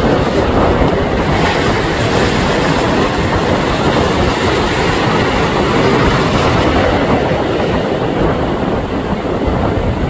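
Loud, steady rumbling roar of wind and rough, choppy water, with a boat's outboard motor running under it.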